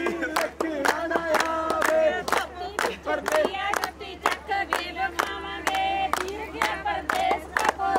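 A group of voices singing and shouting loudly together over a steady beat of sharp hits, about three a second.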